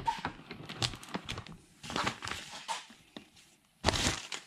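Sheets of newspaper rustling and crinkling as they are handled and gathered up, in irregular bursts, with the loudest rustle about four seconds in.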